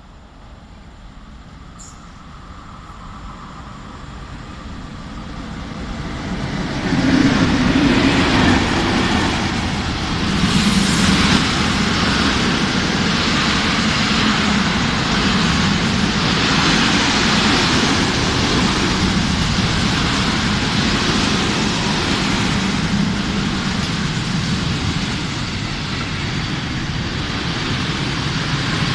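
EU07 electric locomotive hauling a freight train of open coal wagons through a station at speed. The sound swells as the locomotive approaches and passes about seven seconds in, then becomes the steady rumble and clatter of the wagons' wheels on the rails.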